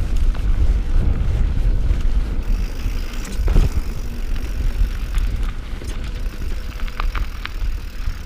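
Mountain bike being ridden down rocky singletrack: a steady low rumble of wind on the microphone and tyres over rock, with the bike rattling and a heavy knock about three and a half seconds in.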